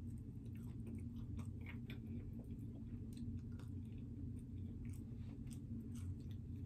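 A person chewing and biting pepperoni pizza, with short irregular mouth clicks scattered throughout, over a steady low hum.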